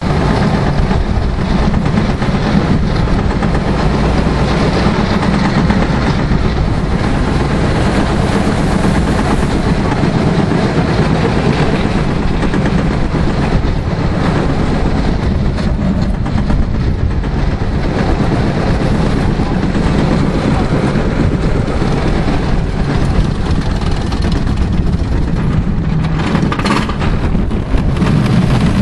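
Super 8er Bahn roller coaster cars running along the steel track with a steady low rumble as the train climbs the lift hill and sets off. The sound grows slightly louder near the end as the ride picks up speed.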